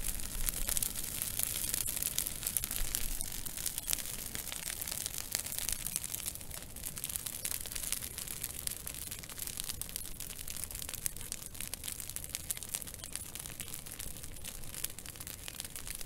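Burning twigs crackling: a dense, steady run of small, sharp snaps and ticks over a low rumble. It is a little louder in the first few seconds.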